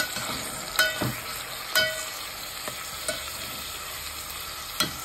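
Steel spoon stirring chopped onions and green chillies frying in oil in a metal pot: a steady light sizzle, with the spoon knocking against the pot three times with a brief metallic ring.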